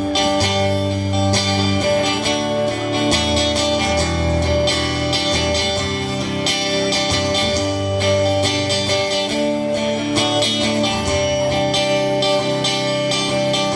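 Live band playing an instrumental passage led by strummed and picked guitar, with no singing.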